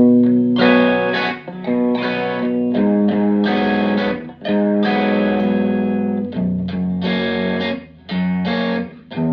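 Fender Telecaster electric guitar played through a Fender Blues Junior IV tube combo amp with the reverb off and the bass turned up to 9: a phrase of struck chords and notes that ring on, with short breaks about a second and a half, four and a half and eight seconds in.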